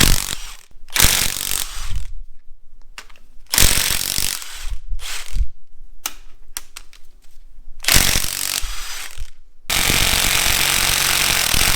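A power wrench working the triple-square cylinder head bolts of a Golf R engine, running in several short bursts and then a longer steady run near the end as a tight bolt breaks loose.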